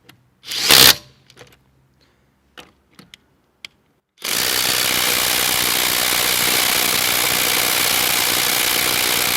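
Brushless cordless impact driver (Parkside Performance PDSSAP 20 Li B2) at its 226 Nm maximum setting, hammering steadily for about six seconds from about four seconds in as it tries to break loose a shop-tightened car wheel bolt through a 17 mm socket. Before that, a short loud burst about a second in and a few light clicks.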